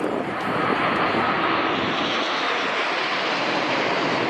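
Nine BAE Hawk jet trainers passing overhead in close formation. Their Rolls-Royce Adour turbofans make a steady jet roar that swells right at the start and then holds.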